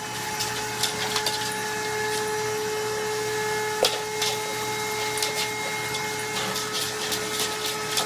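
Vacuum cleaner running steadily with a whine, its hose nozzle sucking air on a wooden floor while a dog goes after it, with scattered sharp clicks and knocks.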